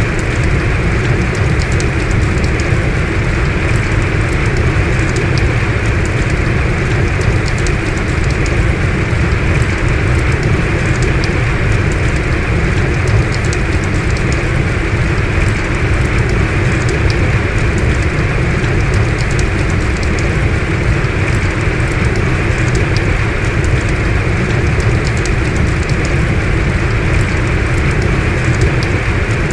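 Heavy rain falling steadily, a dense, unbroken downpour.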